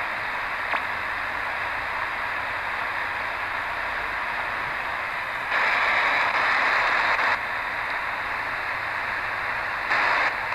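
Degen DE1103 shortwave radio in SSB mode hissing with static while scanning the band. A louder rush of noise comes in about five and a half seconds in and lasts about two seconds, and comes again briefly near the end.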